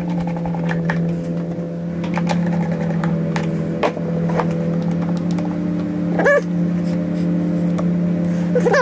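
A steady low hum, with a dog whimpering in short high-pitched whines about six seconds in and again near the end. Light clicks of tools being handled.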